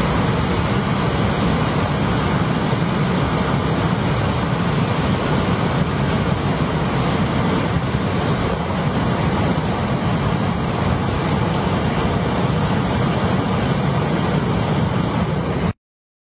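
Fast-flowing rocky stream rushing steadily, a constant even noise of water. It cuts off suddenly near the end.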